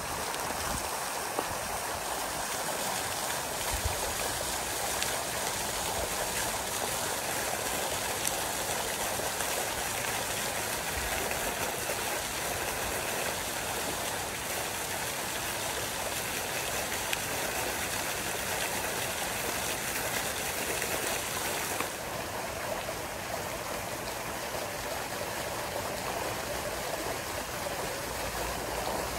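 Steady rushing and splashing of a water spray falling onto a trout pond, its hiss dropping a little about 22 seconds in.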